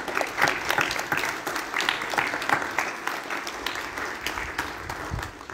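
Audience applauding, a dense patter of many hands clapping that builds quickly and then tails off toward the end.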